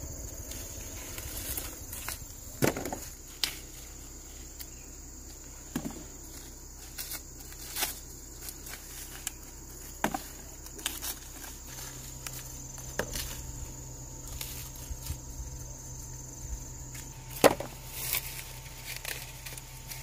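Dry corn ears being snapped off their stalks and husks torn open by hand: a scatter of sharp cracks and crackling of dried leaves, the loudest crack near the end. Behind it runs a steady high insect drone that fades out a few seconds before the end.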